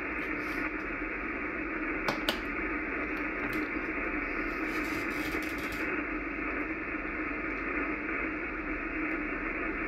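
Icom IC-746PRO transceiver receiving on the 80-metre band with nobody transmitting: a steady hiss of band noise, cut off above like a sideband filter. Two sharp clicks come about two seconds in.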